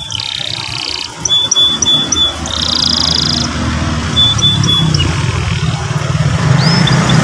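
Canary singing a varied song: several buzzy rolls lasting about a second each, runs of quick repeated high chips, and rising whistled sweeps, over a low steady rumble.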